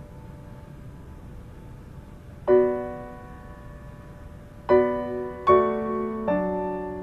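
Background score on piano: after a soft held tone, a chord is struck about two and a half seconds in, then three more follow in quicker succession near the end, each ringing out and fading.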